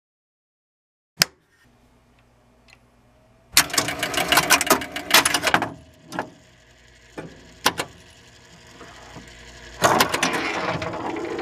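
Electromechanical pinball machine powered on. A toggle switch clicks about a second in and a low hum starts. Then its relays and score reels clatter in a rapid run of clicks as the game resets, with a couple of single clacks and a second burst of clattering near the end.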